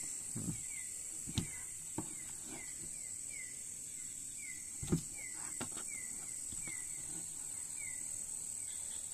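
Night insects keeping up a steady high-pitched drone, with a short falling chirp repeated about twice a second. A few dull knocks from fish being moved about in a plastic bucket, the loudest about five seconds in.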